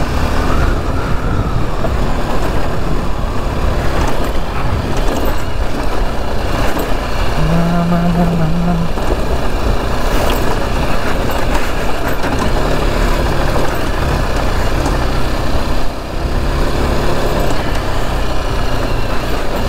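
Motorcycle under way, its engine running steadily beneath heavy wind and riding noise on the rider's microphone. A short steady hum sounds about eight seconds in.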